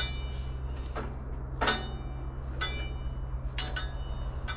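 Several light metallic clinks, about one a second, each ringing briefly, over a steady low hum.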